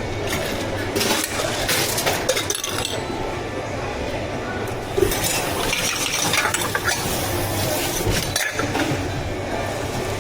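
Clinking and clattering of drink-making cups, utensils and containers being handled in irregular bursts, over a steady low hum.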